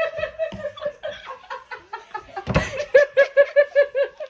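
Young women laughing hard in short rhythmic 'ha-ha' bursts, quickening to about five a second near the end, with one brief thump about two and a half seconds in.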